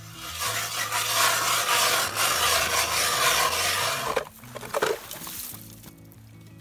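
Hand-cranked ice auger boring through lake ice: a steady, loud rasping grind of the blades shaving ice that stops suddenly about four seconds in, as the hole is finished.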